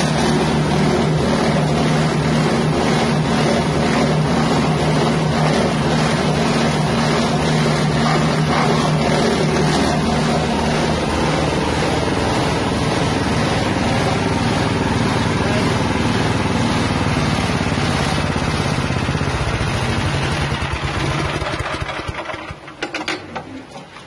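Engine-driven hammer-mill grinder for spice roots such as galangal, powered by a 6.5 hp engine, running steadily at speed. About twenty seconds in it winds down and coasts towards a stop, and the sound drops away.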